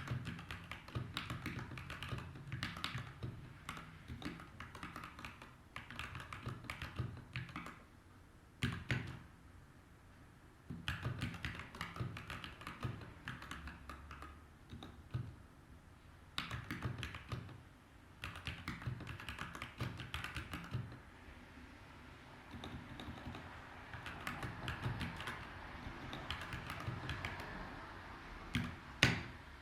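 Typing on a Montech MKey TKL mechanical keyboard with Gateron brown switches: rapid runs of keystrokes in bursts with short pauses between, and a few heavier strokes among them.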